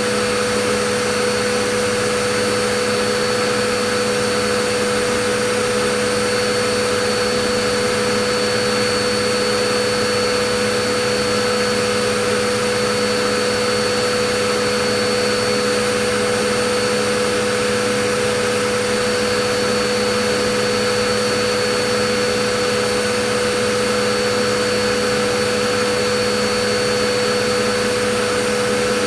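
Vacuum cleaner running steadily: an even rushing noise with a constant motor whine, no change in speed or pitch.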